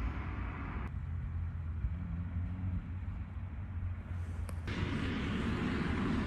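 Road traffic around a roundabout: a steady low engine rumble. About three-quarters of the way in it swells into the broader sound of vehicles going by.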